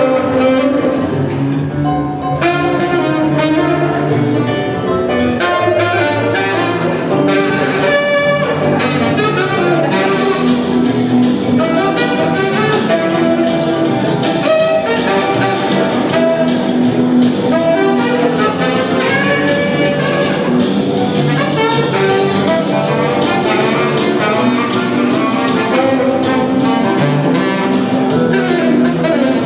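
Live jazz-blues band playing, with a saxophone carrying a melodic line over low bass notes and accompaniment.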